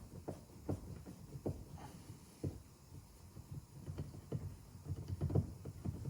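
Scattered small clicks, taps and knocks as a screwdriver is worked into a car door-trim panel screw and turned, with handling of the plastic door card; the clicks come closer together near the end.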